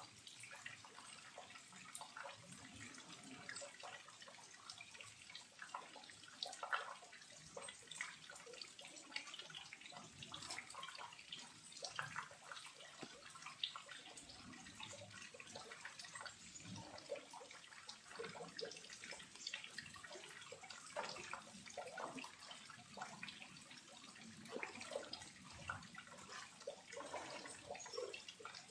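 Small waterfall running at low flow, trickling and splashing softly: an irregular patter of drips and splashes over a faint steady rush of water.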